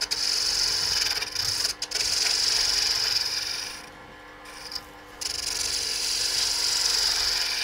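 Roughing gouge cutting a spinning maple handle on a wood lathe: a steady hissing cut that stops for about a second around four seconds in, then starts again, over the lathe's steady hum.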